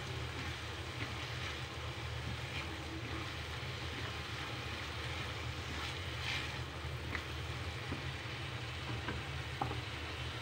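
Chopped tomatoes and greens frying in a pan, a steady sizzle with a few faint scrapes and taps of a spatula stirring them, over a steady low hum.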